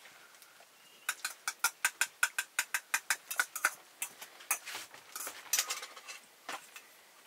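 A quick, even run of sharp taps, about six a second for nearly three seconds, followed by a few slower, irregular taps.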